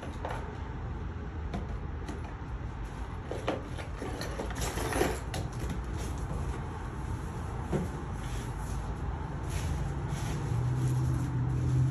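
Cardboard boxes handled and shifted, with a brief rustling scrape about five seconds in and a few light knocks, over a steady low rumble; a low steady hum comes in near the end.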